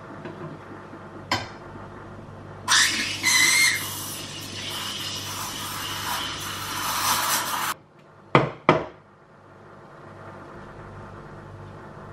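Espresso machine steam wand hissing into a milk pitcher for about five seconds, with a high squeal at first, then cutting off suddenly. A click comes before it and two sharp knocks follow.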